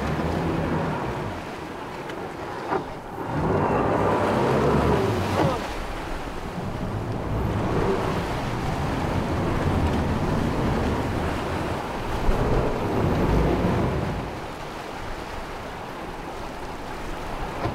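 Yamaha outboard motors backing down, churning the sea into a wash of white water, with wind on the microphone. The churning grows louder twice for a couple of seconds.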